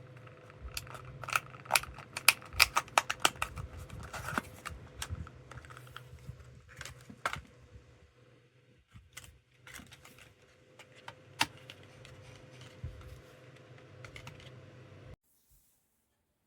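Sharp plastic clicks and taps from a computer mouse and keyboard being used. They come thick and fast for the first few seconds, then scattered. Under them is a faint steady hum, and all sound cuts off about fifteen seconds in.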